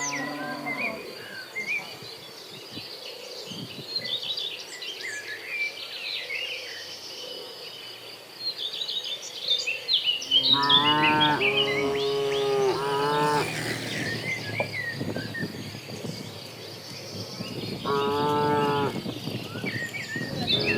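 Cattle mooing: a short call at the start, a long drawn-out moo about ten seconds in, and another moo near the end, over birds chirping and a steady insect buzz.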